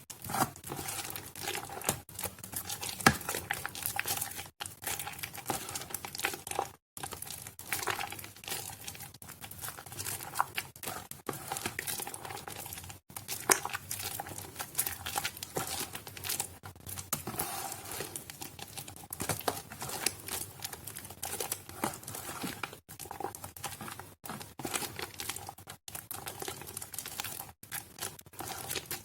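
Soaked Nuvo bar soap being squished and crushed by hand: a continuous, close crackling of wet, softened soap breaking up.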